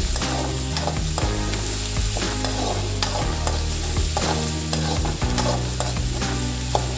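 Slotted metal spoon stirring chopped onions, curry leaves and coconut frying in oil in a metal kadai: a sizzle with frequent scrapes and clicks of the spoon against the pan. A low steady hum runs underneath.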